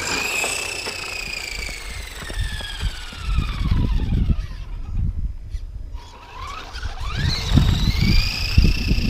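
Electric RC car motor whining. The pitch rises as the car speeds up, peaks just after the start, then sinks slowly as the car slows. About six seconds in the whine winds up again and holds high and steady, over bursts of low rumble.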